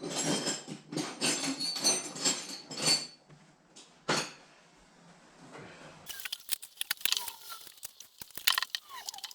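Rummaging through stored tools and hardware: irregular clattering and clinking of small metal items for about three seconds, one more rattle a second later, then a run of small quick clicks and knocks near the end.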